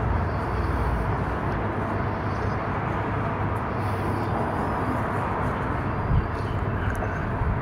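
Flour-coated chicken cubes deep-frying in hot oil in a wok: a steady sizzle and bubbling with a low rumble underneath.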